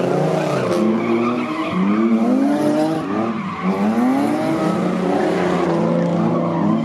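A car engine revving hard, rising and falling in pitch about once a second, as the car spins its tyres in a burnout, with tyres squealing on the pavement.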